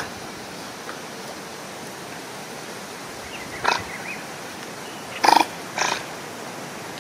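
Otter calling: three short calls about three and a half, five and six seconds in, the middle one the loudest, with fainter squeaks around the first.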